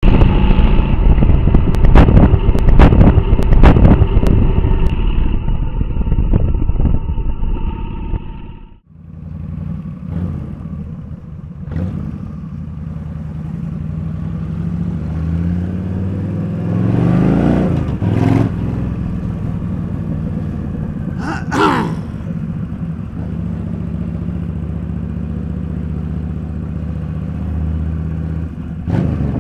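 A loud opening of held tones with sharp knocks about once a second, which cuts out after about nine seconds. Then a Yamaha XVS1300 V-Star's V-twin engine runs at steady road speed, heard from the rider's seat with wind noise, and its note rises and falls once as the bike accelerates and eases off midway.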